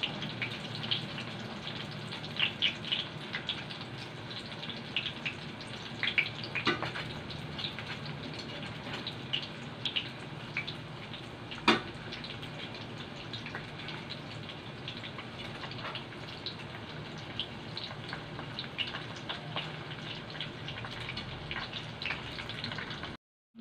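Lumpia spring rolls deep-frying in hot oil in a pan: steady sizzling with many small pops and crackles throughout. There is one sharp click about halfway through.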